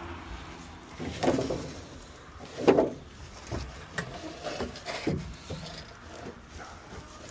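A box spring and wooden junk being loaded into a truck bed: several separate thuds and wooden knocks, the loudest about two and a half seconds in, with fabric rustling close by.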